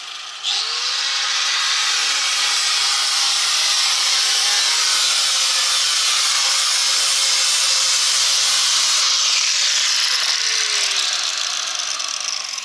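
Angle grinder spinning up and grinding into the van's sheet-metal body with a loud, steady grinding noise, then winding down over the last couple of seconds as the disc slows.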